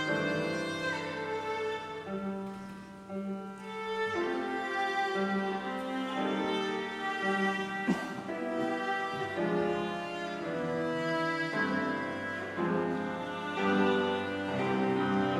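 Slow music on a bowed string instrument playing held notes, with a single sharp click about halfway through.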